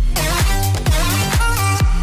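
Background electronic dance music with a steady kick drum about twice a second under a synth melody.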